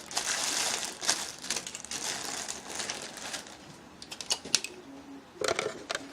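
Packaging rustling and crinkling as it is handled during unboxing, then a few light clicks and knocks near the end.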